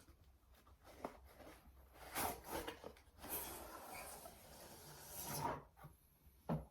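Packaging being handled and opened: a few light knocks, then rubbing and scraping of box or wrapping, with a longer scraping rustle in the middle.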